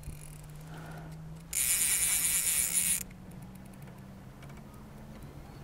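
Fly reel's clicker drag buzzing as a hooked rainbow trout runs and pulls line off it, in one burst of about a second and a half near the middle.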